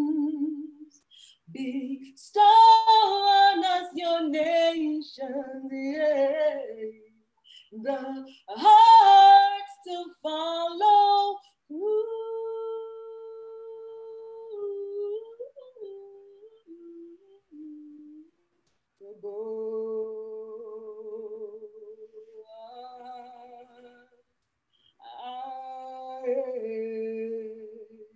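A woman singing solo without accompaniment. In the first half her phrases are loud and sweeping, with vibrato. After that she holds long, steady notes, sung more softly and separated by short pauses.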